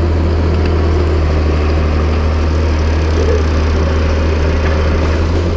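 Tracked excavator's diesel engine running steadily with a constant low hum.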